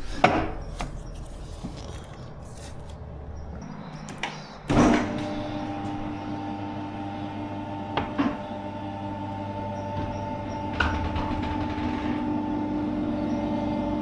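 Workshop vehicle lift's electric hydraulic pump switches on with a clunk about five seconds in and then runs with a steady, even hum as it raises the car. A few light knocks come before it.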